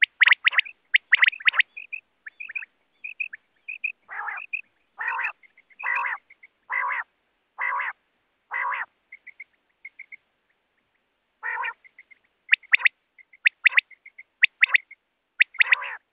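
Common quail calling: sharp short notes, then a run of six fuller, harsher calls about one a second, followed by small high chirps. After a short pause come quick sharp notes in groups of two or three.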